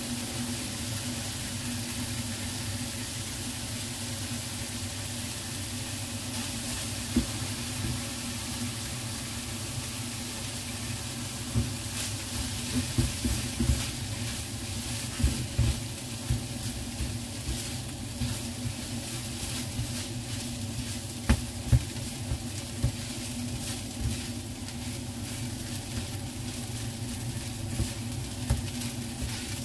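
Fried rice with spinach and ham sizzling in a nonstick frying pan while a spatula stirs and tosses it. Scattered knocks of the spatula against the pan, thickest from about 12 to 22 seconds in, over the steady hiss of the frying.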